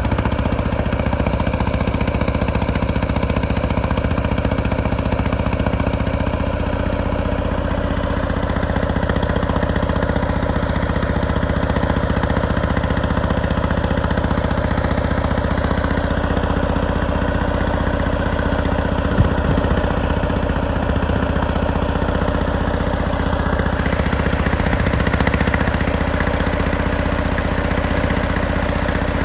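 Detroit Diesel 6V92TA two-stroke V6 diesel engine idling steadily, with one sharp click about two-thirds of the way through.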